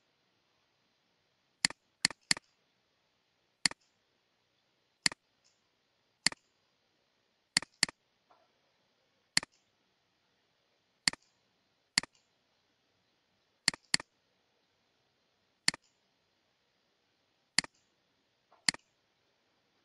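Computer mouse clicking about sixteen times, mostly single clicks a second or two apart, with a few quick double clicks, as services are set to disabled in dialog boxes. There is near silence between the clicks.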